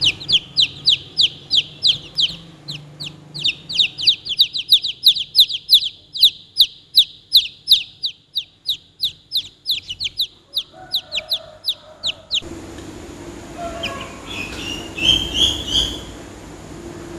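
Chicks peeping over and over: high, short, downward-sliding peeps, several a second. About twelve seconds in the peeping stops abruptly and a steady low hum takes over, with a few fainter high calls.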